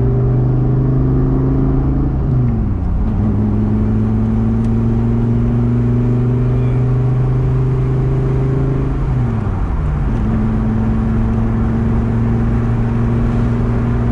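Gen V Dodge Viper's V10 running steadily at low revs under light load, heard from inside the cabin. Its pitch drops briefly about two seconds in and again around nine seconds, then settles back to a steady tone.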